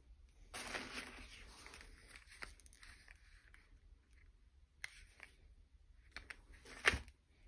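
Tissue paper rustling and crinkling as packing is moved aside and a small cardboard product box is lifted out of a shipping carton, with scattered light clicks of handling and one sharp tap near the end.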